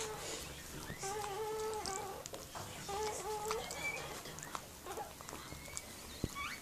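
Newborn miniature pinscher puppy crying in a string of mewing squeals. The longest one comes about a second in, followed by shorter cries and a few higher, thinner squeaks.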